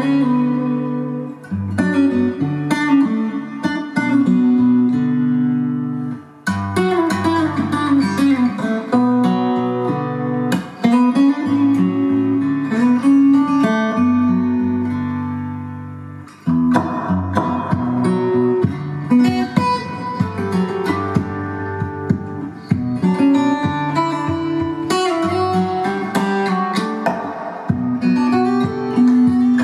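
Recorded guitar music with strong bass notes, played back through a Marantz KI Pearl hi-fi system and a pair of floor-standing loudspeakers. It breaks off briefly about six seconds in and again about sixteen seconds in.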